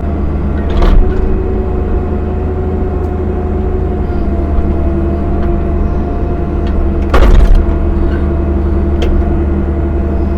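CAT 305 mini excavator running steadily while digging, its diesel engine and hydraulics holding a steady hum and whine. A brief louder clank about seven seconds in.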